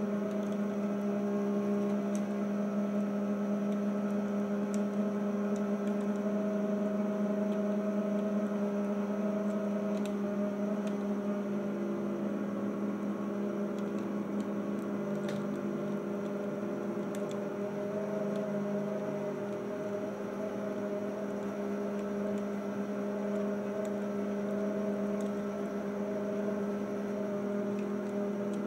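A steady electrical hum with a constant low tone and its overtones, with a few faint ticks scattered through it.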